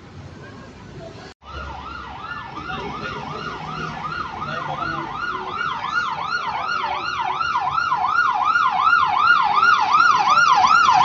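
Ambulance's electronic siren on a fast yelp: a rising-and-falling wail, about three sweeps a second, growing steadily louder as the vehicle approaches. It comes in after a cut about a second and a half in, over quiet street noise.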